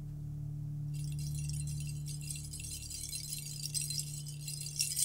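A low held tone lingers as the song's last note dies away. From about a second in, a high shimmering metallic jingling sets in and grows louder near the end.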